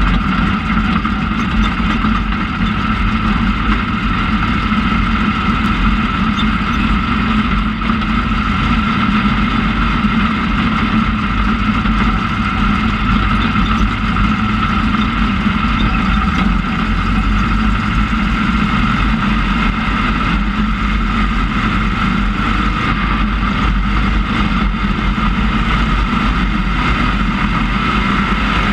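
IMCA Sport Modified dirt race car's V8 engine running at a steady pitch, heard from inside the cockpit, as a continuous loud drone.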